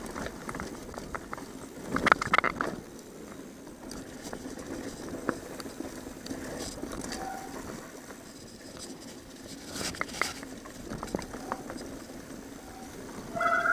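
Mountain bike descending a rough dirt downhill trail: chain and frame rattling and tyres on dirt and dry leaves, with clusters of sharp knocks from bumps about two seconds in and again about ten seconds in.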